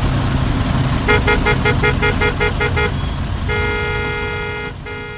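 A car horn tooted in a quick run of about nine short beeps, roughly five a second, then held in a long blast, a brief break and another long blast, over a steady low rumble. The sound fades out near the end.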